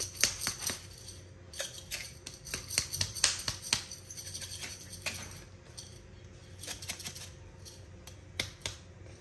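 Irregular light clicks and knocks of a glass seasoning jar and kitchen utensils being handled, coming in clusters with quieter gaps between them.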